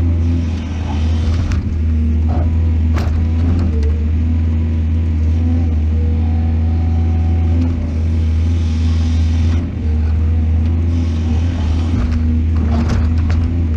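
Excavator's diesel engine running steadily, with a few knocks and rattles, once about three seconds in and again near the end.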